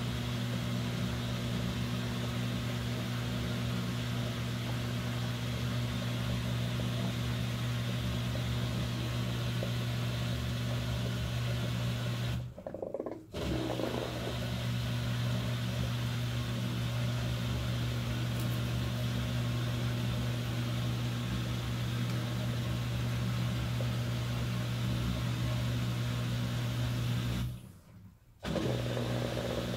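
LG Twin Wash Mini pedestal washer in its wash cycle: the motor hums steadily as it works the sudsy load, stopping twice for under a second, about halfway and near the end.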